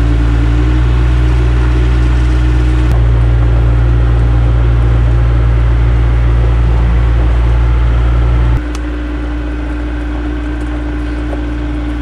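Skid-steer loader engine running at a steady speed, a loud low drone. It drops in level about two-thirds of the way through.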